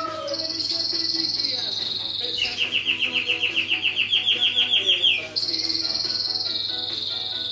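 A songbird singing in long trills held at one pitch. A high trill gives way after about two seconds to a louder, lower, pulsed trill of about seven notes a second, which switches back to a high trill near the end.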